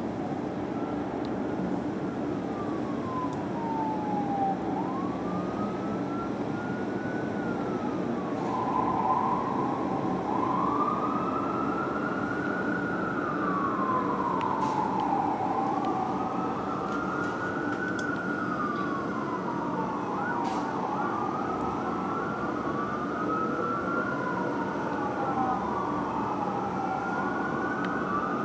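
Fire engine siren wailing, sweeping slowly up and down in pitch, fainter at first and clearer from about eight seconds in, with two sweeps overlapping later on. A steady low rumble of engine and traffic runs underneath.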